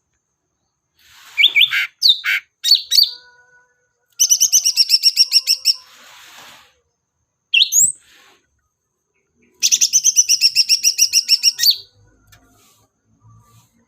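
Recorded songbird calls played as a lure for green leafbirds. Several quick sweeping chirps are followed by a fast rattling trill of about nine notes a second, then a rising call and a second trill of the same kind.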